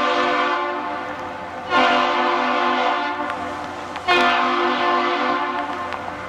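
Ship's horn of the Great Lakes freighter John G Munson sounding long blasts: one fades out, then a fresh blast starts sharply just under two seconds in and another about four seconds in, each slowly dying away.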